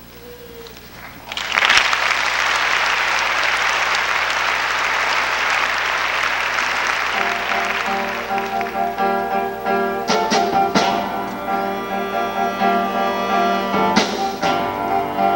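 Audience applause breaks out suddenly about a second in and runs for about six seconds. As it dies away, a live band starts the next number with held chords and a few sharp drum hits.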